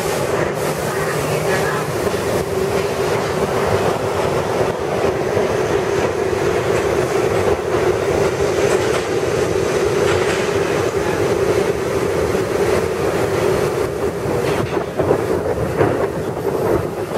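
A 1964 Budd R32 subway train pulls out of the station and runs past. It makes a steady, loud rumble of wheels and motors, with wheel clatter over the rail joints.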